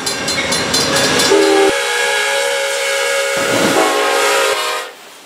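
Train horns and whistles sounding in a series of held chords, each cut abruptly into the next. They stop suddenly near the end.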